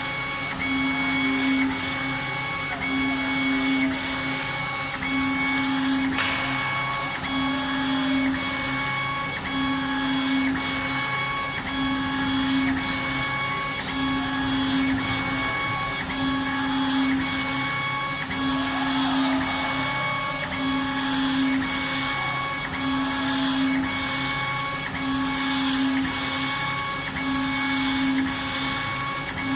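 CO2 laser engraving machine raster-engraving stone: the laser head's drive hums in a steady rhythm, about one pass every second and a third, as it sweeps back and forth, over steady whines and a constant hiss.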